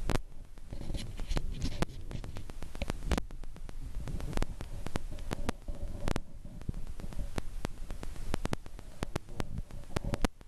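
Handling noise on a handheld camera's microphone: a low rumble with many irregular clicks and thumps as the camera is moved about.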